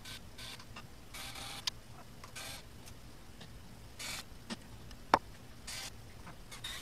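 Hand tools working the oil pan bolts on a Mercedes M102 engine: several short rasping bursts and scattered sharp metallic clicks, the loudest click about five seconds in.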